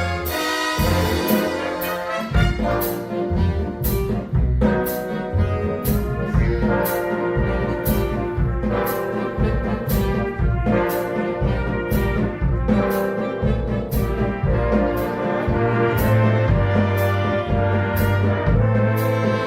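Big band playing a swing arrangement: trumpets and trombones carry the melody over a walking bass line and drums, with a steady cymbal beat about twice a second.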